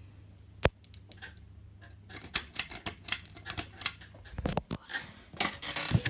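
A run of irregular clicking and rattling from handling around an old ceiling fan's pull-chain controls. It opens with a single sharp click, grows dense about two seconds in, and has a heavy thump about halfway. A faint low hum sits underneath.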